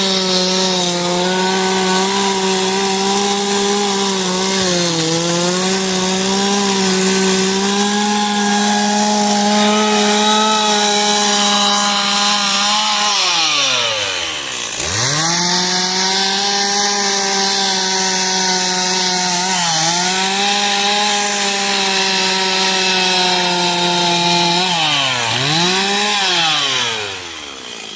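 Two-stroke chainsaw running at high revs while cutting into a wooden carving, its pitch sagging briefly under load several times. About halfway through the revs drop right down and climb back up, and near the end the saw dips again and eases off.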